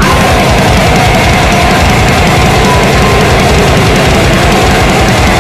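Heavy metal band playing loud and dense, with fast drumming under distorted guitars and a long held note above them.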